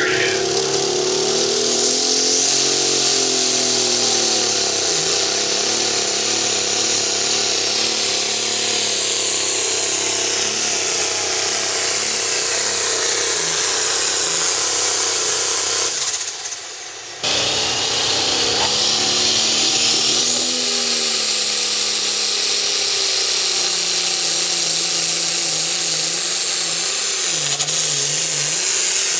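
Limited Pro Stock pulling tractors' turbocharged diesel engines running flat out under load on a pull, with a high whine over the engine. The sound cuts out for about a second just past the middle, then another tractor's engine is heard pulling.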